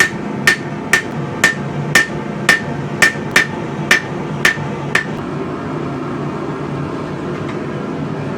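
Hammer blows on the scrap spring-steel blade at the anvil, about two a second, each with a ringing note, rough-forging the blade. The strikes stop about five seconds in, leaving a steady low rumble underneath.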